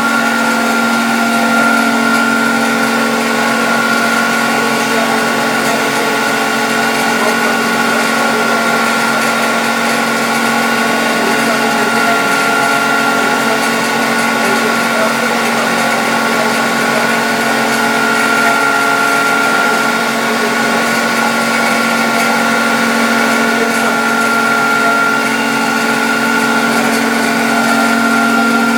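CNC router spindle running steadily with a high whine, over the rougher noise of the machine at work.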